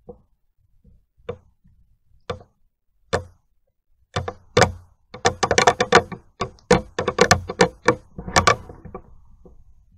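Close crunching footsteps on dry ground: single steps about once a second, then a dense run of crunching and crackling from about four seconds in until near the end.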